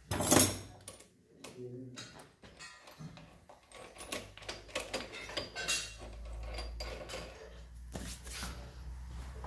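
Metal engine parts clinking and knocking as they are handled and fitted on a motorcycle engine's open aluminium crankcase half, with a loud clatter just at the start and scattered lighter clicks after.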